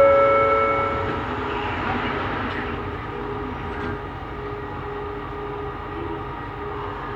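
Bombardier Innovia Metro 300 train running along the line. A steady whine with several tones fades out about a second in, leaving an even running rumble with a faint, intermittent hum.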